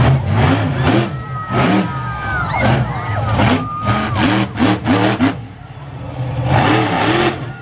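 Illuminator monster truck's engine revving up and down in repeated short bursts as it drives the dirt track.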